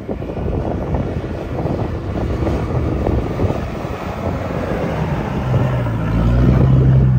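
4x4 SUV engine pulling hard up a soft sand dune, getting louder as it approaches and settling into a strong steady drone as it passes close near the end, with wind buffeting the microphone.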